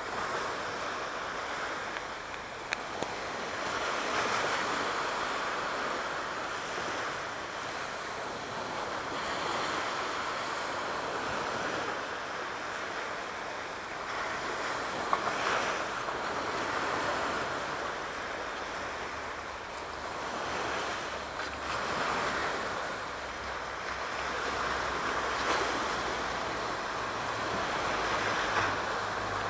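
Aegean Sea waves washing in, the surf swelling and easing every few seconds, with a low rumble coming in over the last few seconds.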